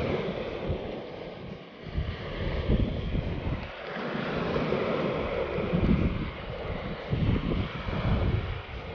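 Wind buffeting the microphone in uneven gusts over a steady rushing hiss.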